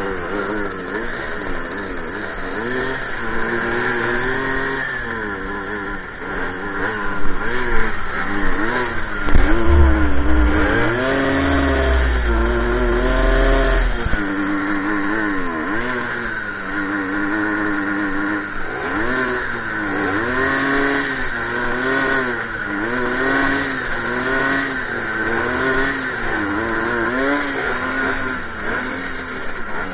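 Small two-stroke moped engine running and revved up and down again and again. A heavy low rumble sits over it for a few seconds about ten seconds in.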